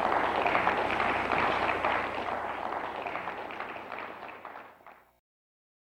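Audience applauding, a dense patter of many hands clapping that slowly dies down and then cuts off abruptly about five seconds in.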